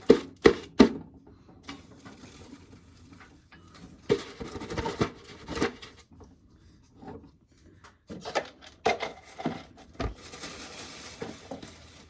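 Dry ear corn and loose kernels clattering and rattling as cobs are handled and fed into a corn sheller, with kernels spilling out over the side. Several sharp knocks come at the start, and there is a single thump about ten seconds in.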